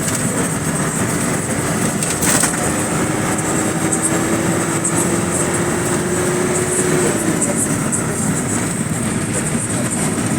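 Steady road and engine noise heard from inside a moving minibus. A whine rises slowly in pitch and drops away about seven seconds in, and there is a sharp knock a little over two seconds in.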